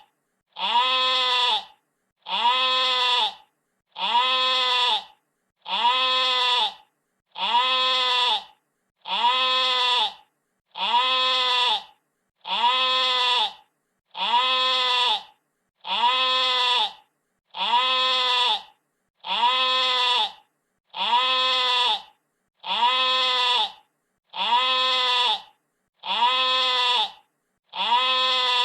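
Sheep bleating: the same bleat, about a second long with a pitch that rises and falls, repeated about every 1.7 seconds with silence between.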